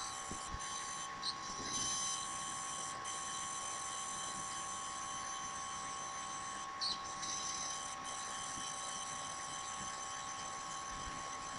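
Faint, steady electronic whine: one constant tone with a set of fainter high tones above it, unbroken throughout, with a couple of faint ticks.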